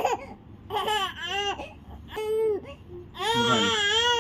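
A baby fussing: a few short, high, whiny cries, then a longer wail starting about three seconds in.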